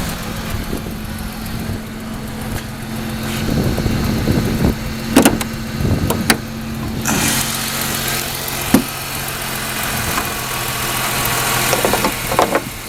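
2001 Ford Mustang's 3.8-litre V6 idling steadily, an idle its owner calls totally fine. Several sharp clicks and knocks come through the middle and near the end, and a little past halfway the engine sound turns brighter.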